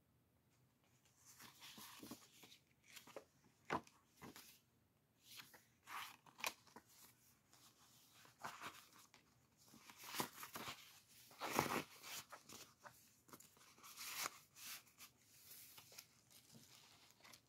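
Paper and card rustling and crinkling as the pages, tags and pocket inserts of a handmade junk journal are handled and flipped. The rustles come irregularly, starting about a second in, with a few sharper snaps, the loudest about two-thirds of the way through.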